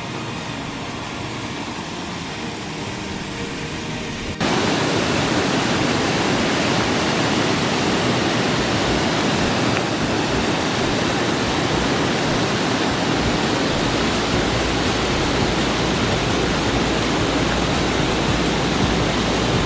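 Rushing rain-swollen runoff from the mountain waterfall, a steady loud rush of water. It starts abruptly about four seconds in, after a softer low hum.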